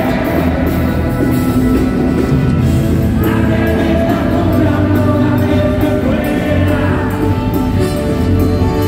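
Rock band playing live and loud, with a drum kit, electric bass and electric guitar and a lead voice singing, heard from within the audience.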